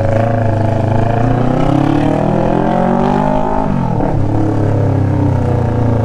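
Inline-four motorcycle engine running through an SC Project aftermarket exhaust, held at a steady engine speed. Its pitch wavers slightly and dips briefly about two-thirds of the way through before settling back.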